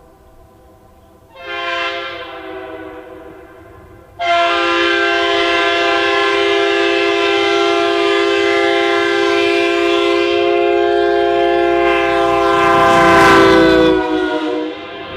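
Locomotive multi-chime air horn on a runby: a short blast, then a long blast of about ten seconds. Its pitch drops as it passes, with a rush of passing noise just before.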